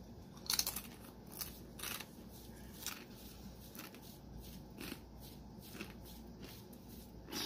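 A Paqui One Chip Challenge tortilla chip crunching as it is bitten and chewed: a series of sharp, irregular crunches, the loudest about half a second in and fainter ones spread through the rest.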